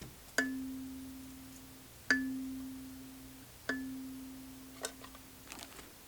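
Gecko K17MBR 17-key kalimba: one low metal tine plucked three times, about a second and a half apart, each note ringing out and fading. A few light clicks follow near the end.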